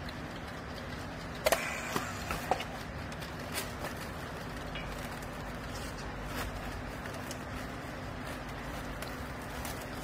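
Short sharp clicks and knocks of plastic bale strapping and a handheld battery strapping tool being handled, bunched about one and a half to two and a half seconds in, over a steady low machine hum.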